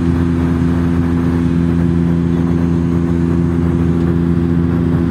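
Cabin drone of a Bombardier Q400 turboprop airliner in cruise: a steady propeller hum of several constant low tones over a rushing hiss of airflow, unchanging throughout.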